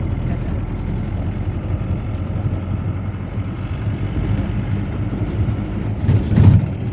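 Steady low rumble of a moving vehicle's engine and tyres heard from inside the cabin, with a louder jolt or knock about six seconds in.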